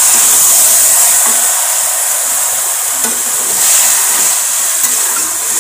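Spiced chicken sizzling in hot oil in a steel kadai while it is stirred with a metal spatula, browning the meat in its masala: a steady, loud hiss.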